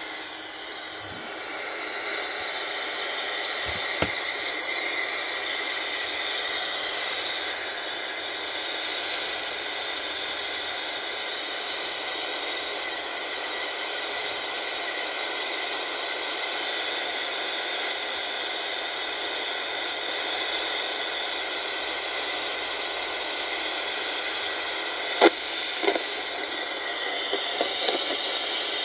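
Unitra RE-125 radio alarm clock's speaker giving a steady hiss of static, with no station tuned in. Two short clicks come near the end.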